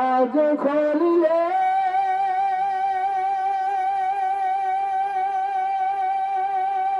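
A man singing a Bengali Islamic song solo, with no instruments: a few quick notes, then one long held note with a slight vibrato from about a second and a half in.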